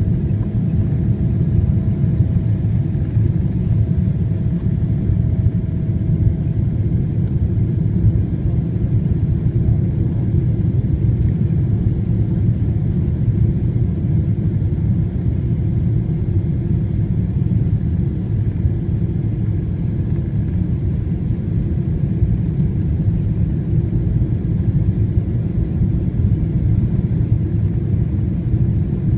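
Steady cabin rumble of a Boeing 777-200 airliner on its landing approach: engine and airflow noise heard inside the cabin, with the flaps extended. A faint steady hum underneath fades out about six seconds in.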